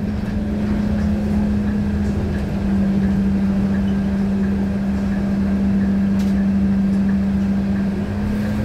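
Scania K230UB bus engine running steadily under way, a constant drone that settles slightly lower in pitch about two and a half seconds in.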